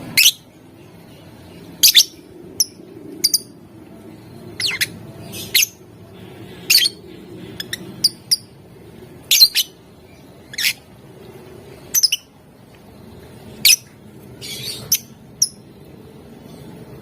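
Lovebird giving short, shrill, squawking chirps, about one a second at uneven spacing, over a faint low hum.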